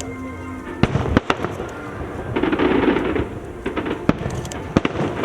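Fireworks display going off: several sharp bangs at uneven intervals, with a denser rush of sound between them.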